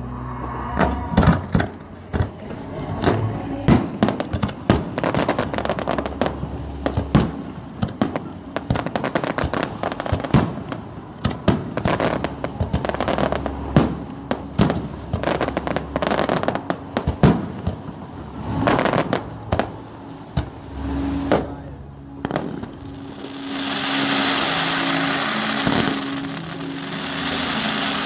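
Aerial fireworks exploding in rapid succession: a long run of sharp bangs and crackles. About 22 seconds in, the bangs stop and give way to a loud, steady rushing noise with a low hum under it.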